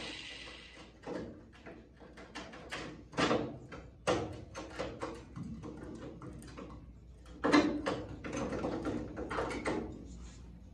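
Irregular metallic scraping, clicking and knocking as a rusty cut-out piece of a 1968 Pontiac Firebird's steel door skin is pried and wiggled loose from the door with a hand tool. There are a few sharper knocks, the loudest about two-thirds of the way through.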